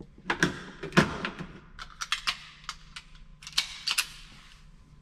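About a dozen sharp, irregular cracks and clicks, some with a short ringing tail, at an indoor pistol range, over a faint steady hum.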